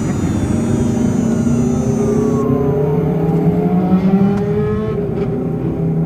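Electric drive motor and inverter of a Honda Step WGN e:HEV (second-generation i-MMD) whining in EV mode with the engine off as the van slows to a crawl. Several tones fall in pitch, and a high inverter tone cuts off suddenly about two and a half seconds in. It is heard from inside the engine bay, over a low rumble of road noise.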